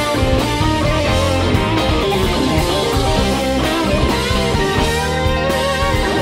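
Live rock band playing an instrumental passage: an electric guitar lead with bent, gliding notes over bass and drums.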